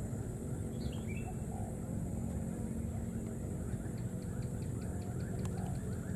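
Faint high chirping calls from a small animal, one short falling chirp about a second in, then short calls repeating about twice a second, over a steady low rumble.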